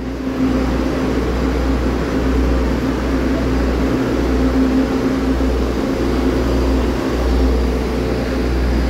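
DRC1000-series diesel railcars' underfloor diesel engines running with a steady low drone as the three-car set moves along the platform.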